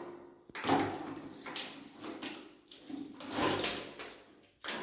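Plastic flexible hose being handled and fitted to a chrome wall stop valve: irregular scraping and rubbing, with a few louder scrapes and a sharp knock near the end.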